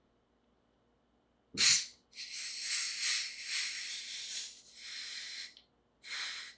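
Carbon dioxide hissing out of a swing-top bottle of strongly carbonated fermented tepache as the lid is cracked open and shut again to vent the pressure a little at a time. There is a sharp, loud burst about one and a half seconds in, then a long uneven hiss of about three and a half seconds, then a shorter hiss near the end.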